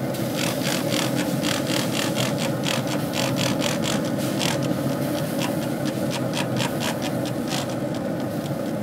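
Trigger-pump plant mister squeezed again and again, each pull a short click and hiss of spray, quickly in the first half and more slowly later, as rum-and-water is spritzed onto smoking ribs. A steady low hum runs underneath.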